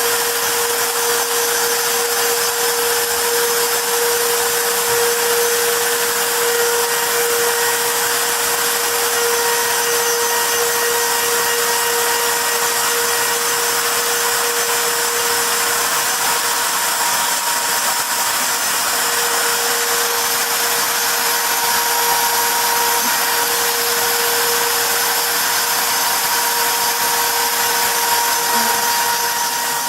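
CNC router spindle running steadily while engraving a wooden plaque: a constant whine over an even hiss, unchanging throughout.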